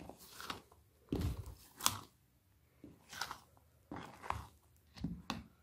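A spoon stirring thick chocolate cake batter in a plastic bowl as flour is folded in: a wet scraping squelch with each stroke, about five strokes roughly a second apart.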